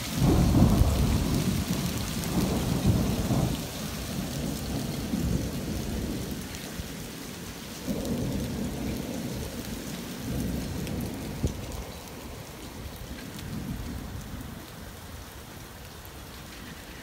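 A rain and hail storm pelting down in a steady hiss. Under it a deep rumble starts suddenly, swells again about eight and ten seconds in, and fades toward the end.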